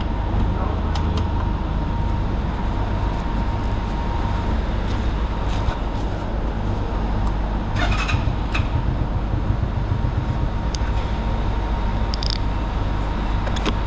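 Jialing 150 cc motorcycle running on the road: a steady low engine drone under constant wind and road noise, with a few short sharp ticks about eight and twelve seconds in.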